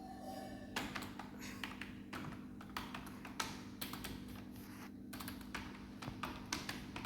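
Typing on a new computer keyboard: irregular, fairly quick key clicks, with a faint steady hum underneath.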